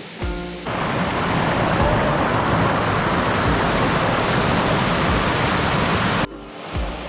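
Waterfall water rushing in a steady, dense roar. It cuts in suddenly just under a second in and cuts off abruptly near the end, with background music on either side.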